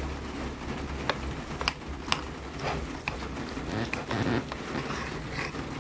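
Knife and fork cutting through a grilled feta-stuffed minced-meat patty on a plate, giving a handful of light, scattered clicks of cutlery on the plate over a low steady hum.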